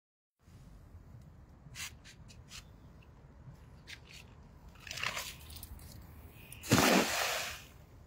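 Cast net thrown from a bridge: a few light clicks and rustles as the net is gathered and swung, then, about seven seconds in, a short loud splashing rush as the weighted net lands on the river.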